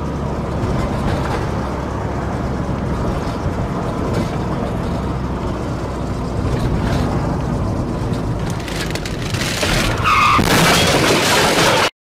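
Steady low rumble of a car's engine and road noise, recorded by a dashcam inside the car. About ten seconds in, a louder harsh noise with a brief squeal comes in, and then the sound cuts off abruptly.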